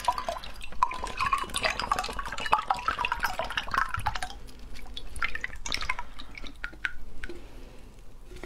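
Grape juice drink with bits of fruit pulp poured from a can into a glass mug: a steady splashing pour for about four seconds, then thinning to a trickle and scattered drips as the can empties.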